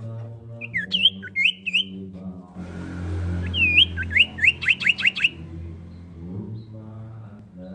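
Common iora song: a few hooked, whistled notes about a second in, then a quickening run of short rising whistles. A low steady hum lies underneath.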